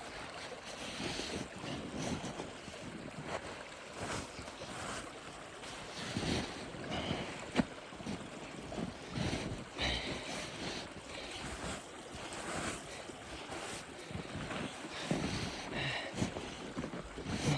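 Snow crunching and scraping with clothing rustling, in uneven bursts and a few sharp knocks, as a person edges slowly across a snow-covered crossing over a creek. Wind rumbles on the microphone.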